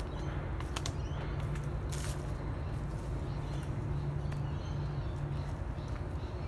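Outdoor ambience with a steady low hum, a few crunches and rustles of dry bamboo leaf litter underfoot, the sharpest about two seconds in, and faint bird chirps.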